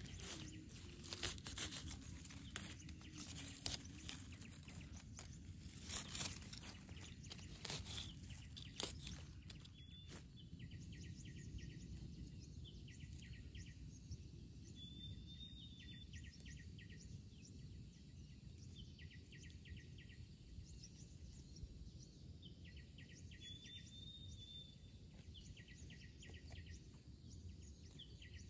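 Rural outdoor ambience. For the first ten seconds there is a run of crunching clicks and rustles. After that comes a steady low rumble, with short rapid trills repeating every couple of seconds and a few brief bird chirps.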